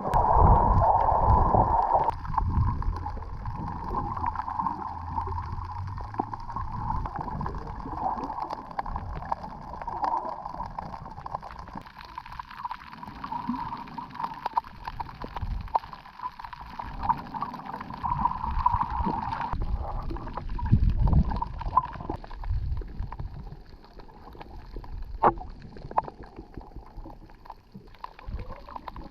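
Muffled gurgling and sloshing of water, as picked up by a camera underwater while snorkeling, with a steady hum that fades out about two-thirds of the way through.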